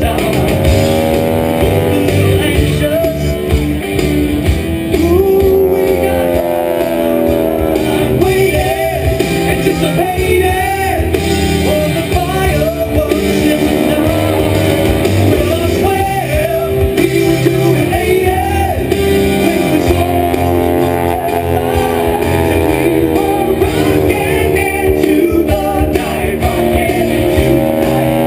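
Rock music with singing, loud and continuous.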